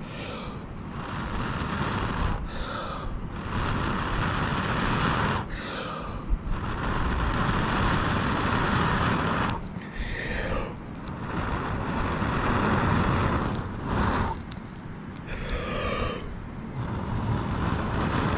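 A person blowing into a tinder bundle around a glowing char cloth ember: long breaths of a second or two with short pauses between, coaxing the ember to flame.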